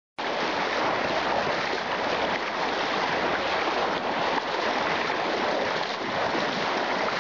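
Steady rush of a salmon-spawning creek's flowing water, cutting in abruptly right at the start.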